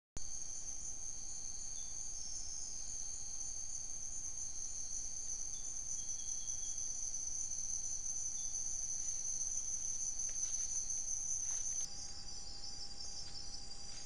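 Insect chorus: many steady, high-pitched trills layered together. It starts abruptly just after the beginning, and the mix of trills shifts suddenly near the end.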